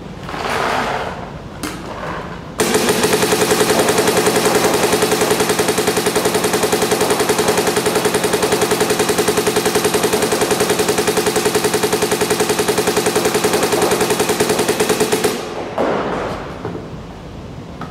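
MacDev Clone 5 electronic paintball marker firing a long, rapid, unbroken string of shots for about 13 seconds, emptying a hopper of paint during a shots-per-tank efficiency test.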